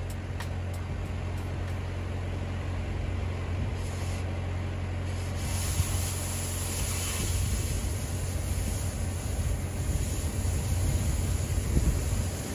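Oxy-acetylene cutting torch hissing as it works on steel angle iron, the hiss growing stronger about five seconds in, over a steady low hum.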